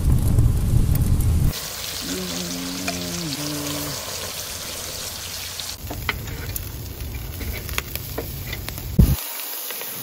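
Charcoal kettle grill: a low rumble from the flaring fire for the first second and a half, then meat sizzling and crackling on the grate over the coals, busier from about six seconds in. A single sharp knock comes near the end.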